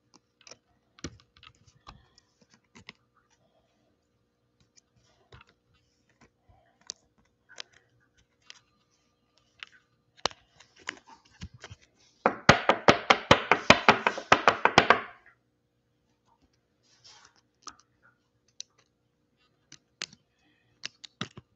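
Pokemon cards and rigid plastic card holders being handled: scattered light clicks and taps of plastic. About halfway through comes a dense run of rapid clicks lasting about three seconds.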